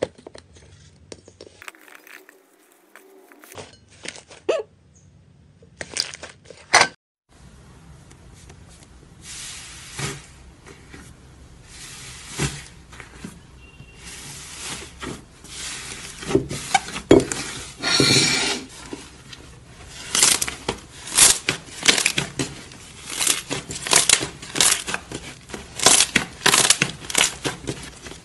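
Hands poking, pressing and squishing slime, making sticky crackles and popping clicks. Sparse at first, then a short break, then denser and louder crackling for the second half.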